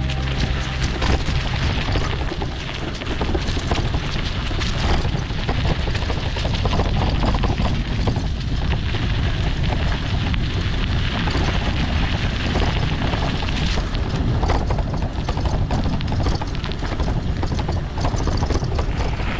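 Wind rumbling on the microphone of a bicycle riding on a gravel forest road, with the tyres crunching and the bike rattling over the rough surface.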